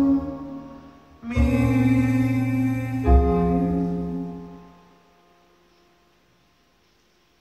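Slow, sustained keyboard chords, a new chord struck about a second in and another about three seconds in, the last one fading away to near silence.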